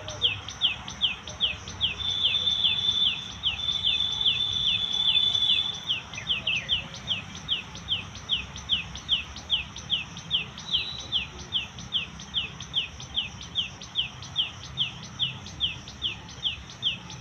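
An animal's short falling chirp, repeated evenly about two and a half times a second. A steady high whine runs alongside it for a few seconds, starting about two seconds in.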